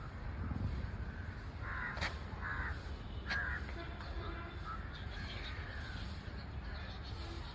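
Harsh, cawing bird calls: a cluster of short calls about two seconds in and another shortly after three seconds, over a steady low rumble.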